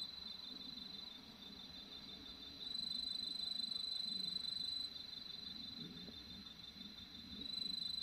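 Cricket trilling at night in a steady, high-pitched trill. It starts about three seconds in, stops near the middle and starts again near the end, over a faint low background rumble.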